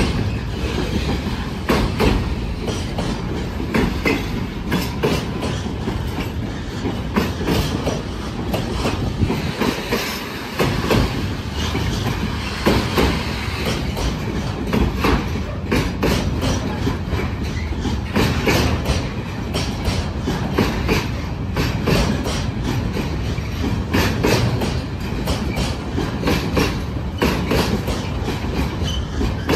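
Freight train wagons rolling past at low speed over a steady rumble, their wheels knocking over the rail joints in a continual irregular clatter.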